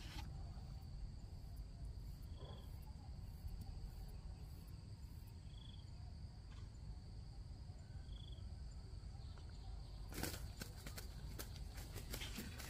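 Insects droning steadily on one high note, with a short chirp every two to three seconds, over a low steady rumble. From about ten seconds in, a run of sharp clicks and rustles.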